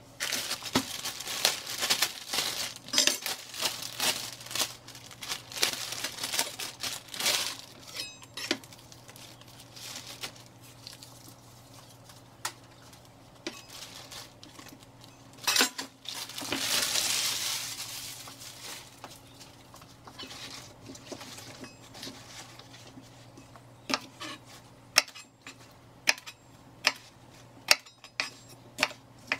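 Plastic bag crinkling and rustling as a bunch of large green onions is unwrapped, with a single sharp knock partway through. Near the end, a kitchen knife cuts the roots off the green onions, knocking sharply on the cutting board about eight times.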